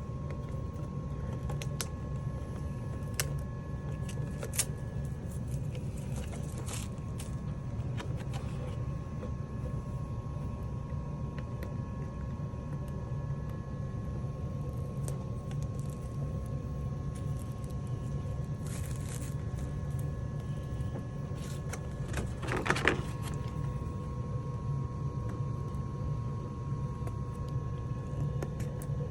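A steady low hum with a faint high whine, broken by scattered light clicks and a short crackle about 22 seconds in.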